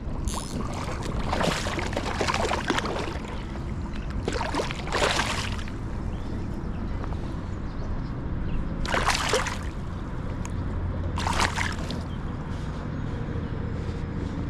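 Water sloshing and splashing in several short, separate bursts over a steady low rumble.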